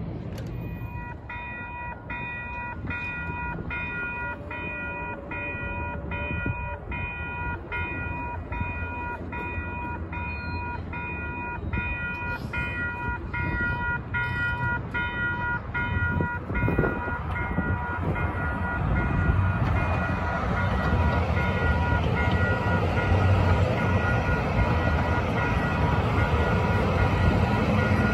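Level-crossing warning bells ringing at about two strokes a second; about halfway through the strokes blur into a steady ringing. A Calgary C-Train light-rail train rumbles through the crossing, growing louder toward the end.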